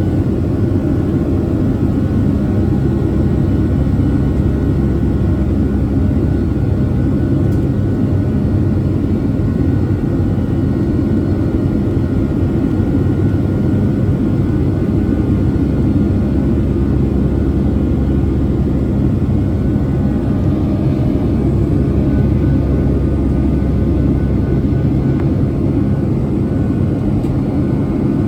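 Steady engine drone and airflow noise inside the cabin of a Boeing 757-200 in flight, with a deep low rumble and a few faint steady hums.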